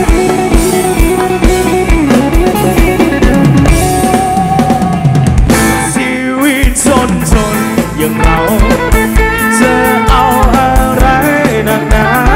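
Live rock band playing loud through a concert PA: a drum kit with a steady kick beat, bass and electric guitar. The bass and kick drop out briefly about halfway, then come back in.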